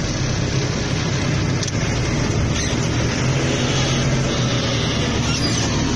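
Telehandler's diesel engine running steadily, heard from inside the cab.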